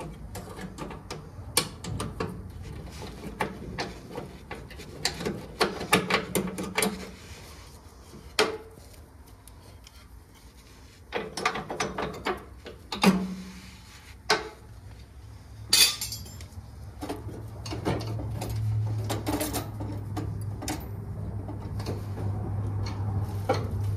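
Pliers clicking, tapping and scraping against the steel linkage rods and cotter pins under a riding mower, in scattered sharp clinks. A low steady hum comes in about two-thirds of the way through.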